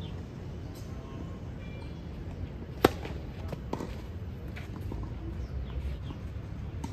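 A tennis ball knocks once sharply about three seconds in, with a few fainter taps after it, over a steady low outdoor background.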